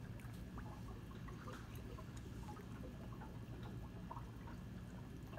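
Aquarium water trickling and dripping steadily, with faint scattered ticks.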